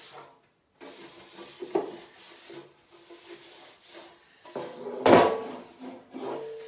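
Cloth rubbing a Cosori air fryer basket dry, with a light knock about two seconds in and a loud clunk about five seconds in as the basket is handled and set down on the table, then a smaller knock.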